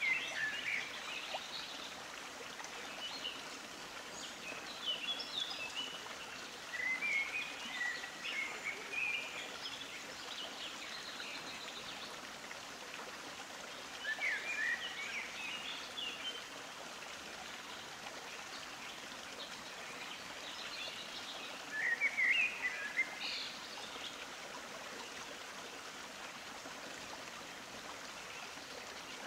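Nature ambience: a steady rush like a running stream, with birds chirping in short bursts every few seconds.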